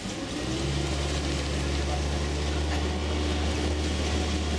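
Tour boat's outboard motor running steadily. It comes up in level about half a second in, as the boat gets under way, with a hiss of wind and water behind it.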